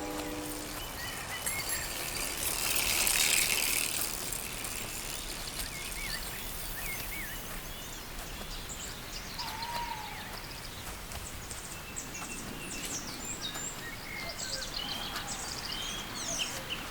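Songbirds chirping and calling in many short, overlapping notes over a steady outdoor hiss, with a swell of rushing noise about two to four seconds in. A held tone of several pitches cuts off just after the start.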